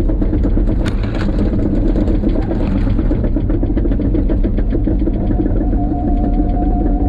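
A motor running steadily with a fast, even pulsing. A steady higher tone joins about six seconds in.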